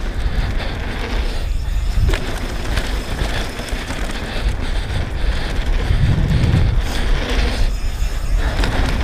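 Wind rushing over the action camera's microphone with the rattle and rumble of a downhill mountain bike's tyres and frame over a dirt trail at speed, a heavier low thump about six seconds in.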